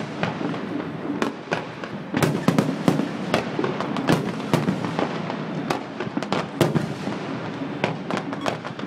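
Fireworks exploding overhead: a dense, irregular run of sharp bangs, several a second, over a steady crackling.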